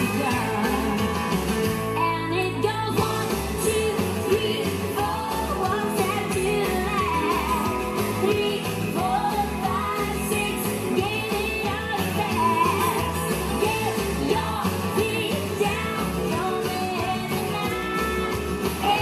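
Recorded rock-and-roll style song with singing over a steady, repeating bass beat.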